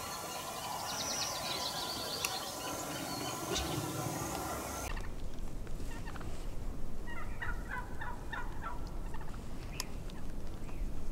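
Gould's wild turkey gobbling: a rapid rattling gobble about a second in and another about seven seconds in. The steady background hiss drops out abruptly about five seconds in.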